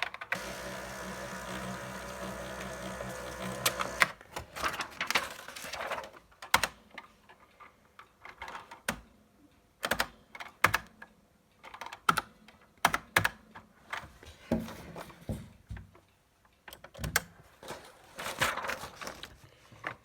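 Electronic typewriter running: a steady motor whir for about the first four seconds, then irregular sharp clicks of typing and printing, with a short rattling burst near the end.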